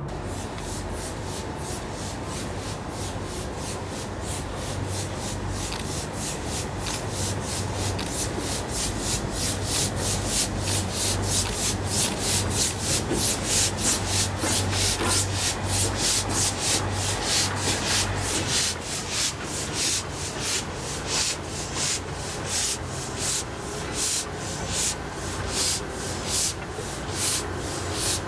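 A cold C56 steam locomotive, pushed by a diesel shunter, chuffing air out of its cylinders in a steady rhythm of hissing puffs as its wheels turn. The puffs quicken, then space out to about two a second from about two-thirds of the way in. A diesel engine's low hum runs underneath and eases at about the same point.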